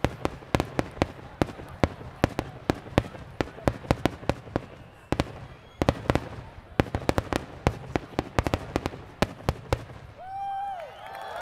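Fireworks going off in a rapid closing barrage, dozens of sharp bangs and crackles in quick succession. About ten seconds in the bangs stop, and a whoop and the first cheers rise.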